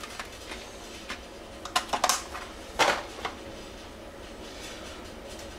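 A handful of light metal clicks and clinks from small fishing hooks and lead hook weights being picked up and handled on a workbench. They come close together about two to three seconds in, then only a low steady background remains.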